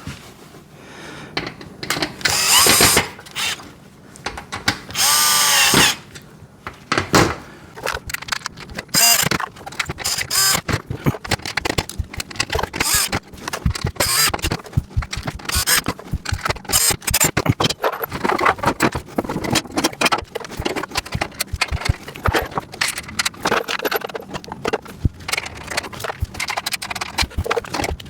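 A power drill/driver runs in two short bursts, the second wavering in pitch, driving bolts that fix caster wheels to a metal rack's bottom tray. After that come many small metal clicks and rattles from bolts, nuts and casters being handled.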